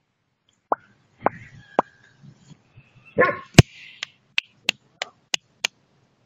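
Dog barking in play with short, sharp yaps: a few scattered early on, one longer bark a little past three seconds in, then a quick run of about five yaps, roughly three a second.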